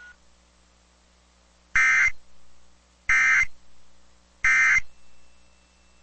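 Three short bursts of SAME digital data tones, the Emergency Alert System end-of-message code ('NNNN'), sent over NOAA Weather Radio. Each burst is a buzzy electronic warble lasting under half a second, and the bursts come about a second and a half apart.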